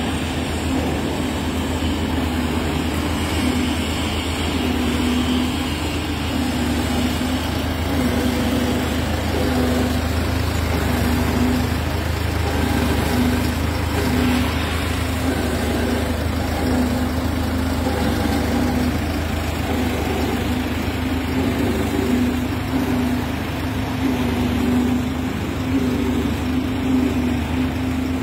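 Diesel engine of a Hyundai Mighty EX8 vacuum sewage-suction truck idling steadily, a low, even hum.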